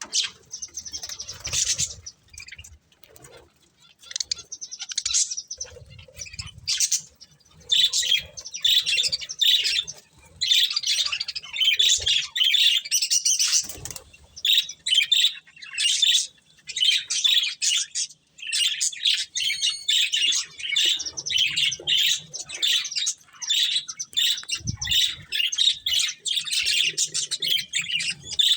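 A pair of budgerigars chattering: rapid, high chirps and warbles, with short pauses in the first few seconds and near-continuous chatter from about ten seconds in.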